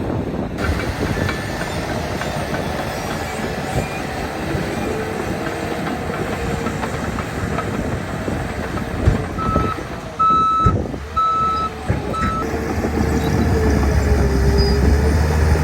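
Diesel engine of a Caterpillar 816D earthmover running under working load, its pitch rising and falling, with a reversing alarm beeping four times about two-thirds of the way through as the machine backs up.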